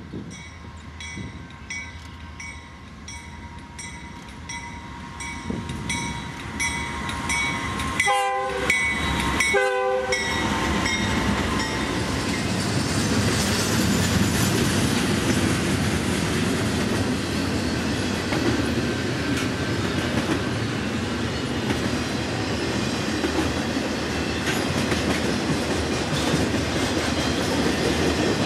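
A bell rings steadily at about two strikes a second as a freight train approaches. About eight seconds in, the diesel locomotive's horn sounds two short blasts. Then comes the steady rumble and wheel clatter of a double-stack intermodal freight train passing close by.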